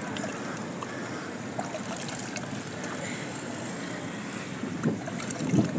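Steady rushing noise like wind on the microphone, with a few faint clicks and a louder low rumble near the end.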